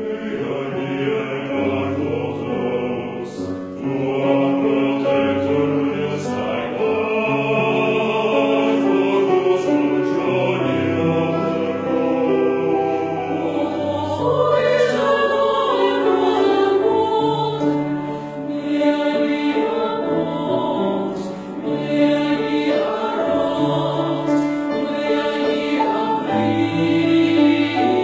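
Mixed choir singing in several parts with piano accompaniment, coming in loudly at the start and holding full, sustained chords.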